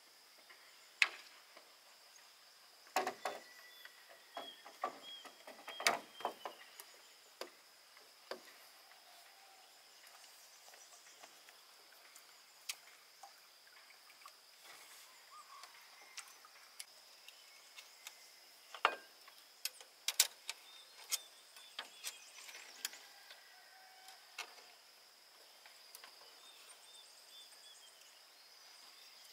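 Steady high-pitched insect drone, with scattered sharp knocks and clicks, several in quick succession in the first few seconds and again in the middle.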